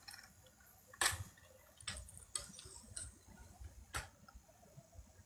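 Scattered light clicks and knocks from handling things while tidying clothes, the sharpest about a second in and another near four seconds.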